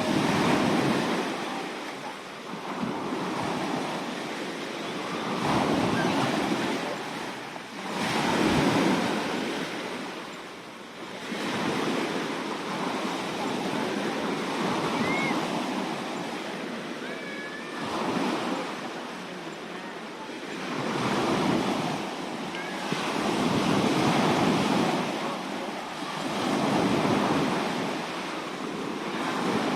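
Sea waves washing onto a shore, the surf swelling and falling away every few seconds.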